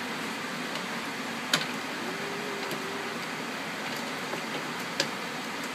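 Steady background hum with two sharp clacks of wooden toy trains knocking against the wooden track, one about a second and a half in and one near the end.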